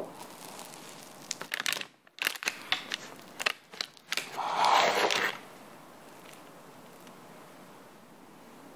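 Knife cutting down through a cheesecake topped with Lotus caramelised biscuits: a sharp click as the blade meets the top, a run of crisp crunches as it breaks through the biscuit, then a louder scraping rustle about four and a half seconds in as it cuts through the biscuit base onto the parchment paper.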